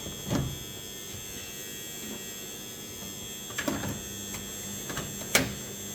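A few plastic knocks and, near the end, one sharp click as a tumble dryer's plastic part is pushed back into place, over a steady electrical hum.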